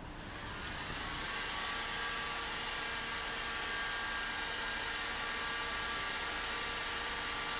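Handheld heat gun blowing steadily, building up over about the first second, with a steady motor whine under the hiss of the air.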